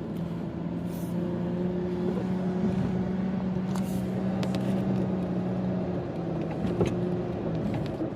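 A car driving: a steady engine hum over road noise, with a few faint clicks.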